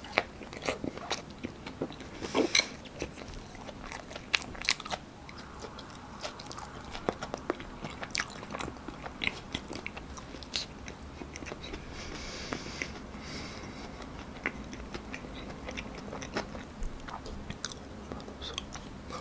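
Close-up chewing of a soft corn-mayo sandwich: wet mouth clicks and smacks at an irregular pace, with a few sharper bites. A brief rustle about twelve seconds in.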